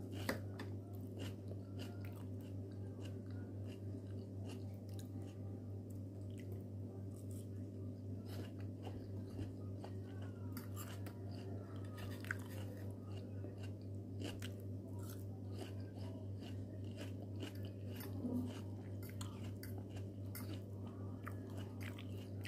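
Close-up chewing of a crunchy salad of lettuce and apple, heard as scattered small crisp crunches and mouth clicks. Underneath runs a steady low hum.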